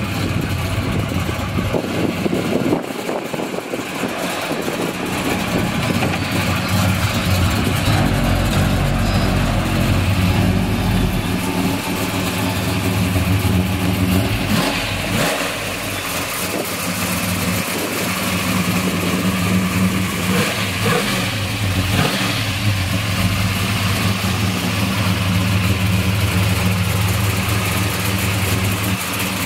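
Car engine running at idle, its low hum shifting a few times as the throttle is blipped.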